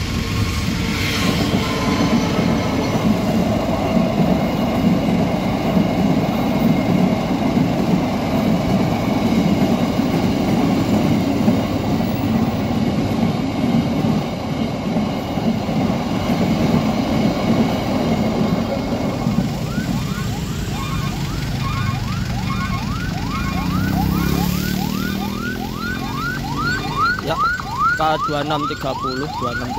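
Fuel tanker freight train running past at a level crossing, a steady heavy rumble of wagons. About twenty seconds in the rumble eases and a rapidly repeating rising electronic chirp starts, coming faster toward the end.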